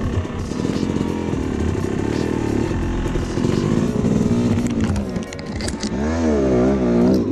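2007 Yamaha YZ250 two-stroke single-cylinder engine running under changing throttle as the dirt bike rides a narrow trail, its pitch rising and falling. In the last couple of seconds the revs go up and down in quick waves.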